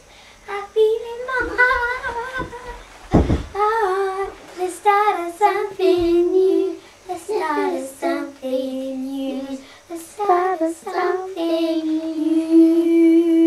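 Two young children, a girl and a boy, singing a pop duet together, with a low thump about three seconds in. Near the end they hold a long, steady note.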